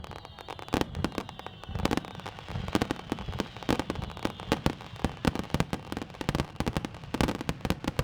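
Aerial fireworks going off in quick succession, a dense run of bangs and crackling bursts. A high whistle slowly falls in pitch over the first few seconds.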